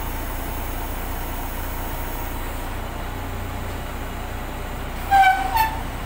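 Rough-terrain mobile crane's diesel engine running steadily while lifting a shipping container. Near the end, two short, loud horn-like toots stand out above it.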